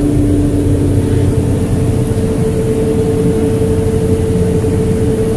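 Johnston mechanical street sweeper running, heard from inside its cab, with its gutter brush and vacuum suction working: a loud, steady engine-and-fan drone. A held hum in it steps up in pitch about two seconds in.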